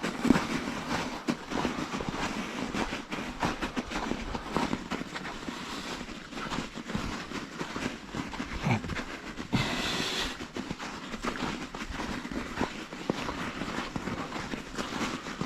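Bicycle being ridden over rough ground: a continuous rattling, knocking ride noise, with a brief higher hiss about ten seconds in.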